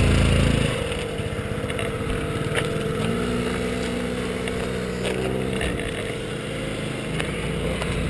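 Small scooter and minibike engines running. A loud engine near the start drops away about half a second in, then an engine revs up and back down around the middle, over a steady whine.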